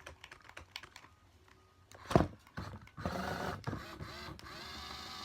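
Toy RC car's small electric motor and gears whirring steadily, running on a freshly charged lithium-ion battery. Before it starts, about three seconds in, there are light clicks and a single knock.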